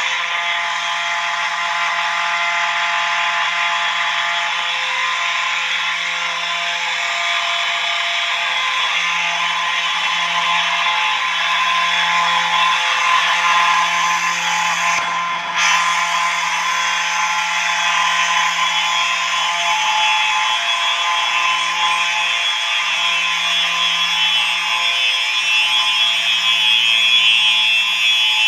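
Simplex 4903-9220 and 4903-9242 mechanical fire alarm horns sounding continuously together: a harsh, steady buzz rich in overtones, with a brief dip about fifteen seconds in.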